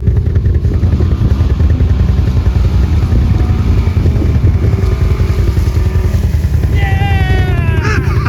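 Can-Am Outlander ATV engine running steadily under load while towing a disabled ATV. A person shouts "Yeah!" near the end, with a falling pitch.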